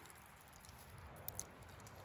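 Near silence: a faint background hush with two soft clicks a little past halfway.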